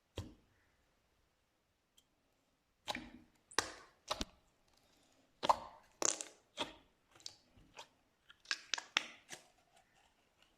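Slime being pressed and worked by hand, giving a string of short, sharp crackling pops and snaps at irregular intervals. There is a single snap at the start, then a pause of nearly three seconds before the pops come in quick clusters.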